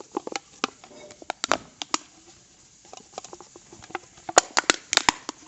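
Empty, dented aluminium soda can being squeezed, its thin wall popping in and out in irregular sharp clicks, loudest in a quick cluster about four to five seconds in.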